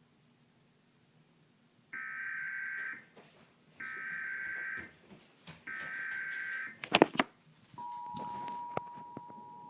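Emergency Alert System header for a Required Monthly Test: three one-second bursts of SAME data tones, evenly spaced, then a few loud sharp clicks. Near the end the steady two-tone EAS attention signal begins.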